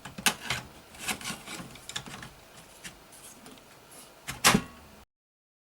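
Irregular clicks, taps and rustles of parts being handled, with two louder knocks about four and a half seconds in; the sound cuts off abruptly to silence about five seconds in.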